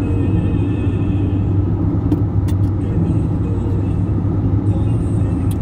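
Steady low rumble of a car driving, engine and road noise heard inside the cabin. A few light clicks come about two seconds in and again near the end.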